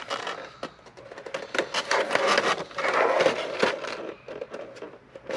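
Plastic miniatures insert tray being handled and turned on the table: rubbing, scraping and a run of small plastic clicks, loudest about halfway through.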